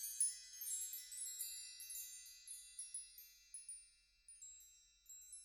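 Chimes tinkling: a cascade of high, ringing strikes that thin out and fade away.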